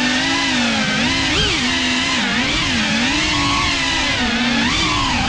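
GEPRC CineLog35 cinewhoop's motors and ducted propellers whining in flight, the pitch dipping and rising repeatedly as the throttle changes.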